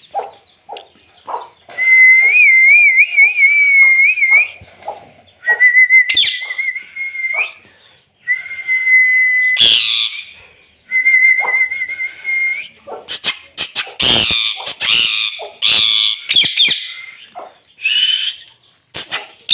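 A parrot whistling: four long, wavering whistles of two to three seconds each, followed for the last several seconds by harsher, noisier calls, with short clicks scattered between.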